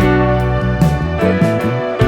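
Background music: instrumental, with piano or keyboard notes.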